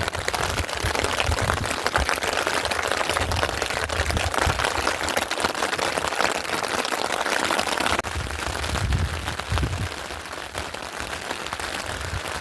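Steady rain pattering, a dense stream of fine drop ticks, with irregular low thumps underneath.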